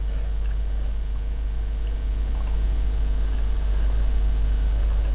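Steady low electrical hum in the recording, with a thin steady higher tone over it and a few faint clicks.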